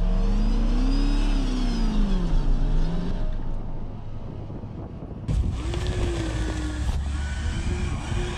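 Off-road Land Rover's engine revving: its pitch climbs for about a second, then eases back down. About five seconds in the sound changes suddenly to an engine held at a higher, steadier speed.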